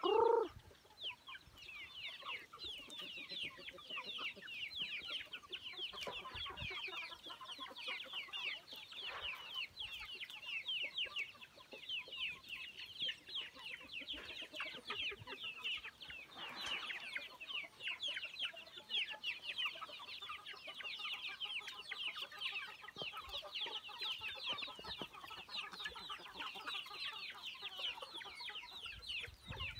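A flock of young chickens peeping in a dense, continuous chatter of short high chirps. One bird gives a single loud, lower squawk at the very start.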